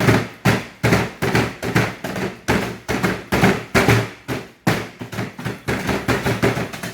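Biscuits being pounded with an ulekan pestle in a mixing bowl: repeated hard strikes, about two to three a second.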